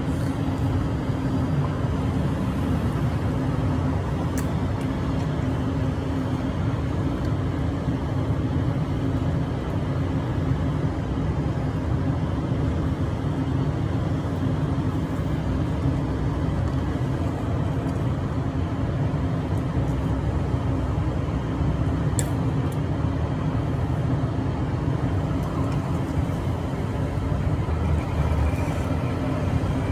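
Steady city street ambience: a continuous low traffic rumble with a steady hum, and a couple of faint clicks.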